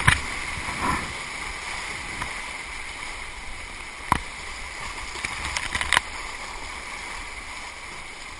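Rushing whitewater of a flood-swollen river heard from a kayak running the rapids, with paddle-stroke splashes and a few sharp knocks, the clearest about halfway through and again about two seconds later.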